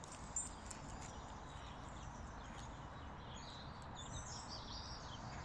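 Outdoor ambience: a steady background rush with small birds chirping in short high notes from about three and a half seconds in, and a single sharp click near the start.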